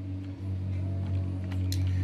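A steady low hum runs under light handling clicks of printer plastic and wiring, with one sharper click near the end.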